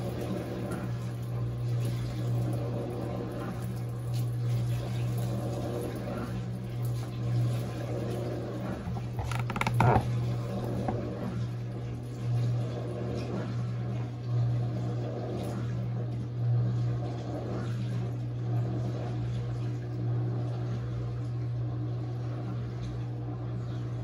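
Panasonic NA-F140B6 top-load washing machine running as its spin cycle begins, with a steady low hum and a little water noise. A brief clatter about ten seconds in.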